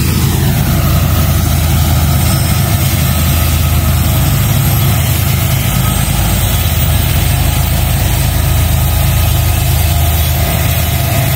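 Kansas City Southern diesel locomotives passing at close range on a freight train: a loud, steady, deep engine drone.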